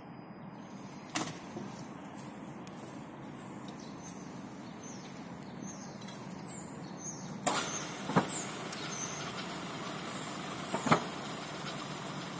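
Four sharp metal clanks from a steel depot gate as it is unlatched and swung open across the tram tracks, the loudest near the end. Under them runs a steady low hum from a tram waiting to pull out, growing slowly louder, and birds chirp.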